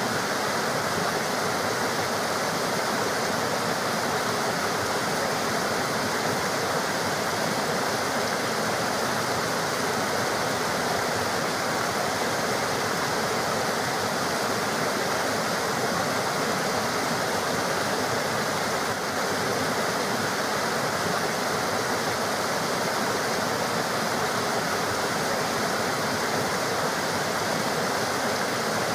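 Running river water: a steady rushing that does not change.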